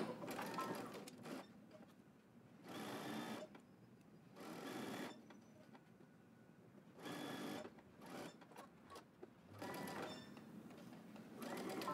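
Home sewing machine stitching a seam, running in short bursts of about a second with pauses between.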